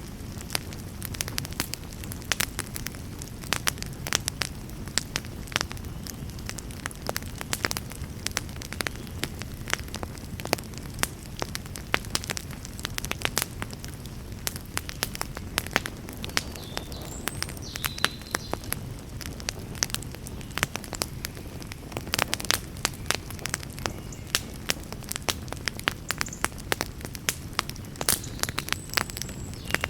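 Wood fire burning in a fireplace: frequent sharp crackles and pops over a steady low rumble of flame.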